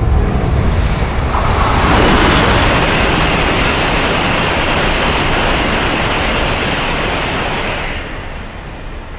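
Train passing at speed over the crossing: a steady rush of wheel and rail noise that swells about two seconds in and fades away near the end.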